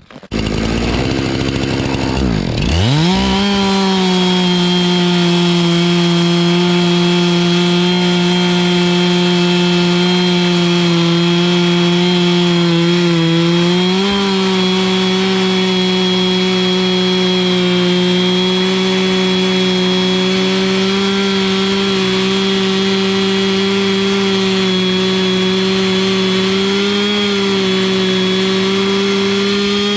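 Two-stroke chainsaw with a ripping chain, run on an Alaskan chainsaw mill to rip boards from a log. The engine comes up to speed after a dip in pitch about two to three seconds in, then holds loud and steady at high revs under cutting load.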